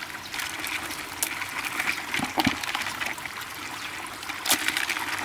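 Water trickling steadily, with a few sharp clicks and taps from freshwater crabs clambering over one another in a plastic bucket.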